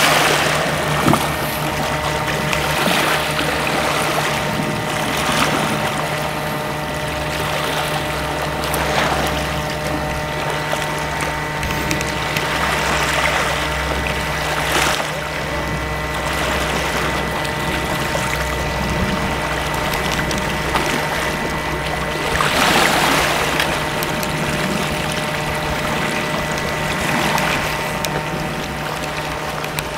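Sea waves washing against a rocky shore, swelling and falling every few seconds, the strongest surge about two-thirds of the way in, over a steady low hum.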